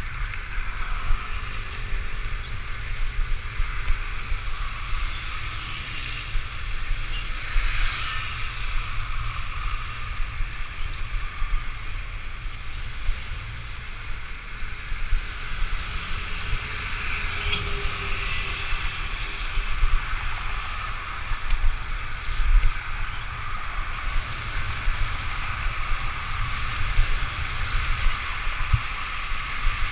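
Steady wind rush on a moving action camera's microphone, with road noise underneath and a few short knocks about 8 and 17 seconds in.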